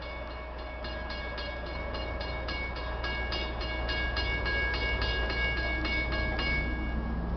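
Locomotive bell of GP40PH-2B 4213 ringing with rapid, evenly spaced strikes as the train approaches. The bell stops about six and a half seconds in. Underneath is a low rumble that grows louder.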